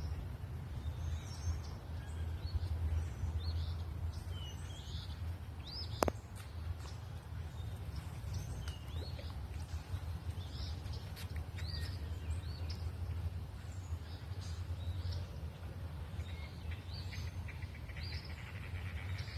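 Wild birds chirping and whistling, many short calls throughout, over a steady low rumble. A single sharp click sounds about six seconds in.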